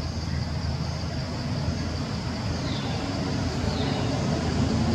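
Outdoor ambience: a steady low rumble that swells slightly, under a thin high drone, with two short high falling chirps late on.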